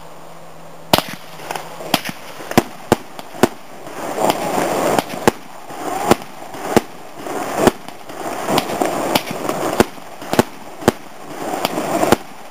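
Night Star Total Eclipse firework barrage firing. From about a second in it gives a quick, uneven run of sharp bangs, one or two a second, with a hissing rush between the shots.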